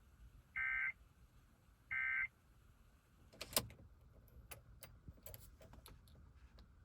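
Two short bursts of Emergency Alert System end-of-message data tones, the warbling two-tone code that closes an EAS test, about a second and a half apart. Then a sharp click and a scatter of fainter clicks.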